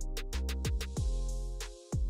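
Electronic music with a drum-machine beat: deep kick drums and quick, even ticks over a held synth chord.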